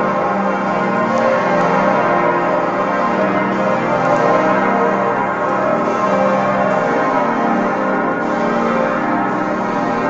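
Church bells of the Kaiser Wilhelm Memorial Church ringing together in a full peal, many bells overlapping in a steady, dense wash of tones without a pause.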